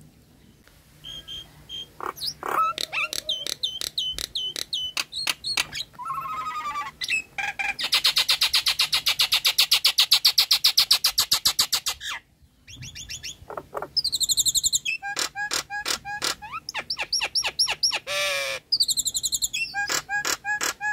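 Nias hill myna calling: a loud, varied string of sharp notes and whistles. The middle holds a long, rapid run of repeated notes; after a brief pause come repeated whistled phrases.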